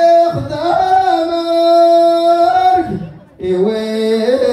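A man singing long, drawn-out notes into a microphone. One long held phrase breaks off about three seconds in, and a second phrase begins soon after.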